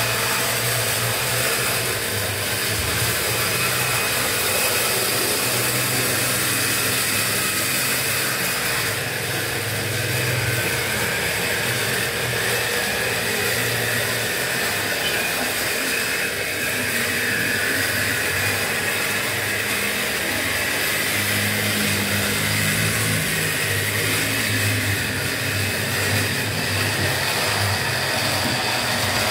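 Model BB 305 diesel locomotive running out of view on the layout: a steady engine-like drone with a faint high whine over a hiss.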